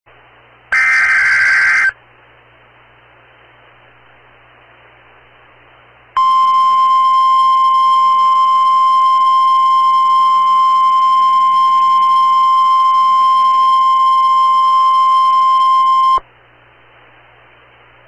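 Emergency Alert System tornado warning from NOAA Weather Radio. It opens with a harsh burst of about a second, the SAME digital header data, then a steady single-pitch alert tone of about 1050 Hz that sounds for about ten seconds and cuts off sharply. Faint radio hiss fills the gaps.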